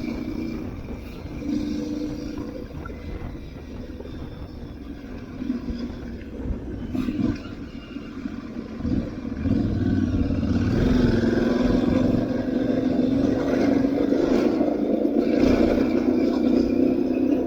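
Aprilia Tuareg 660's parallel-twin engine running under way, easing off and quieter through the middle with a few knocks, then pulling louder and steady from about ten seconds in.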